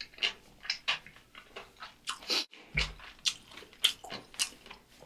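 Close-miked chewing of a mouthful of food: a string of short, crisp crunches, about two a second, with a brief pause about halfway through.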